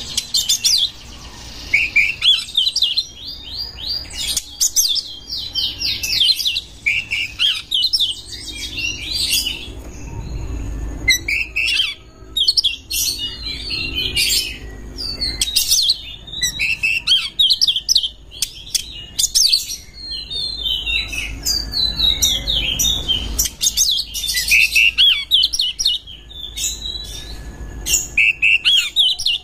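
Oriental magpie-robin (kacer) singing a long, varied song of fast chirps, whistles and trills, with a short pause about ten seconds in.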